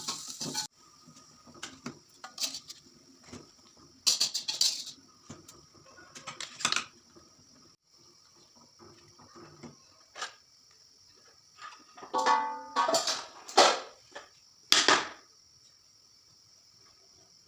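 Frying sizzle cuts off within the first second, followed by scattered clinks and clatters of pots, dishes and cutlery, with quiet gaps between them and a busier run near the end.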